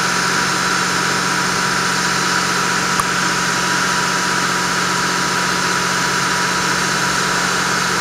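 A standing passenger train giving off a steady, unchanging mechanical hum with a hiss, like an idling engine. There is a single faint click about three seconds in.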